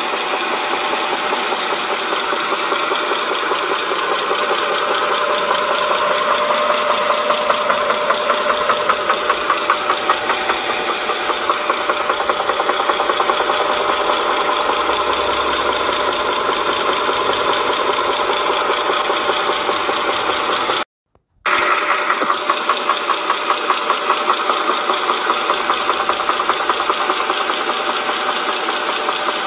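2007 Dodge Charger's 2.7-litre V6 running with a fast, steady knocking rattle from the timing chain, which the owner puts down to a broken chain guide or tensioner. The sound drops out for about half a second a little over two-thirds of the way through.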